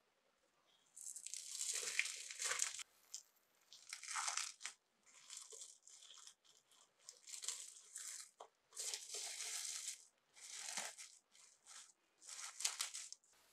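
Thin clear plastic film crinkling and rustling as it is peeled open from a block of cookie dough, in a string of irregular rustles starting about a second in.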